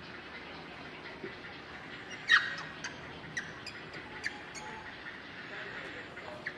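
Short animal calls: one loud, sharp squawk about two seconds in, followed by a string of brief, high chirps over the next couple of seconds.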